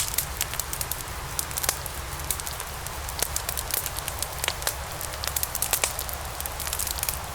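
A fire burning: a steady low rumble and hiss with frequent sharp crackles and pops.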